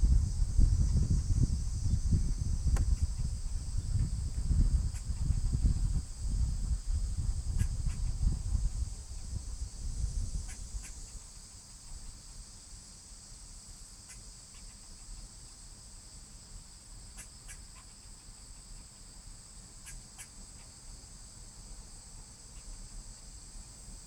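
Steady high buzz of a cicada chorus, with gusts of wind rumbling on the microphone that die down about ten seconds in and leave the cicadas clear. A few brief sharp sounds are scattered through.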